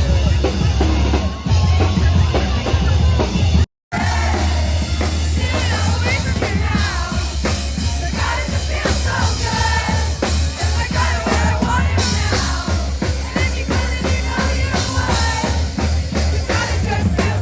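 Loud live band music with a heavy drum kit, booming bass and singing, cut off for a split second about four seconds in.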